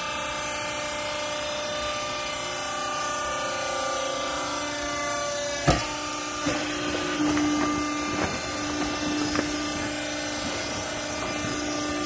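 Hydraulic power unit of a vertical used-clothes baler running with a steady hum. A single sharp metal clunk comes about halfway through, followed by a few seconds of small knocks and rattles as the pump tone grows louder.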